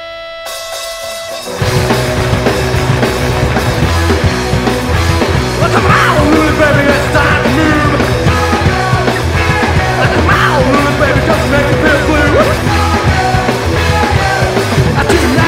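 Recorded punk rock song: held sustained notes give way, about a second and a half in, to the full band coming in loud with drums, bass and electric guitar, and singing starts about six seconds in.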